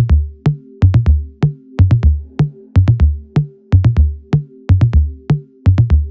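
Dancehall intro music: a drum-machine beat with a heavy, booming kick and sharp clicking hits repeating over a held synth chord.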